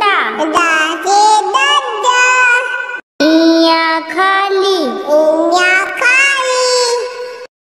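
A child's singing voice sings lines of a Hindi alphabet song, pausing briefly about three seconds in and stopping just before the end.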